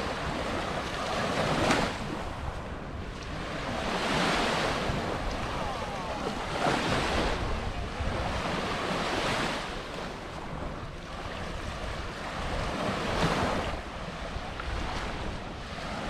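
Small Mediterranean sea waves breaking and washing up a sandy shore, swelling every few seconds, with wind rumbling on the microphone.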